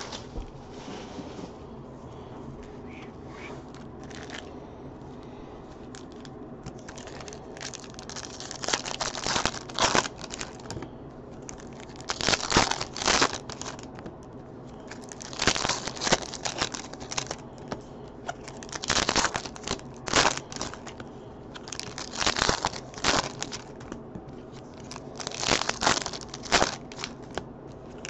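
Foil trading-card pack wrappers (2015 Topps Chrome football packs) being torn open and crinkled by hand, in short bursts every couple of seconds, starting several seconds in; quieter handling and shuffling of cards in between.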